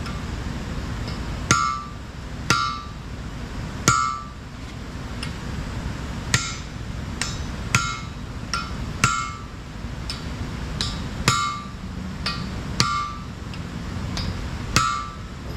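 A short-handled sledge hammer strikes a brass drift about a dozen times, roughly once a second, each blow ringing metallically. It is driving a bearing race down into a Caterpillar D10 final-drive hub to seat it fully at the bottom of its bore.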